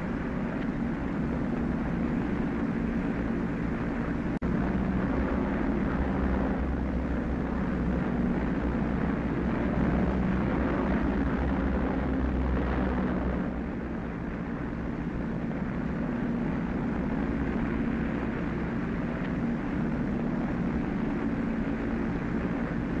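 Vickers Wellington bomber's twin engines droning steadily in flight, with a momentary dropout about four seconds in.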